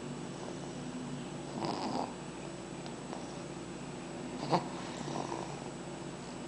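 Snoring: a steady low rumbling in the throat, swelling into a louder breath about one and a half seconds in, with a short sharp sound about four and a half seconds in.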